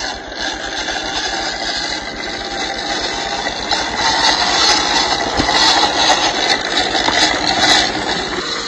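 MN86K RC crawler's electric motor and gearbox whining as it drives over lumpy mud, with clicks and rattles from the tyres and chassis. It grows louder in the second half as the truck comes close.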